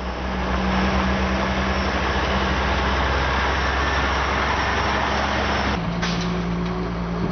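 Diesel tractor-trailer dump truck running as it drives on a gravel road: a steady low engine note under road and tyre noise. The sound changes abruptly about six seconds in.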